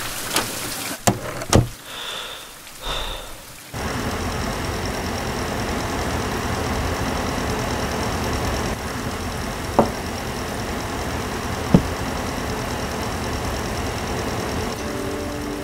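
A few sharp clicks and two short high beeps, then about four seconds in an electric space heater switches on and runs with a steady fan noise and a faint high whine. Two single sharp knocks come later, a cup being set down.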